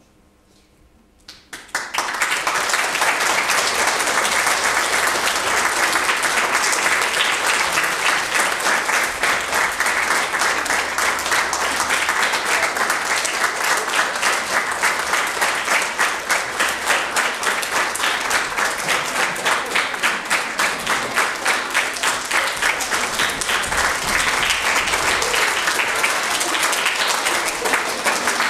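Audience of schoolchildren applauding in a hall. A brief hush, then dense clapping starts about two seconds in and keeps going, falling into a regular pulsing beat in its second half.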